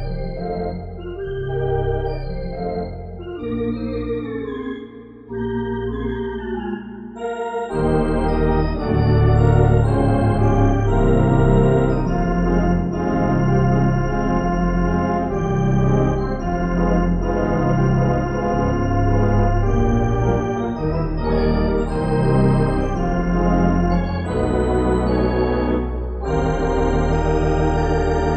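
Sampled Barton theatre pipe organ played through Grand Orgue virtual organ software: sustained chords under a melody line. A lighter, quieter passage gives way about eight seconds in to a fuller, louder registration with strong bass.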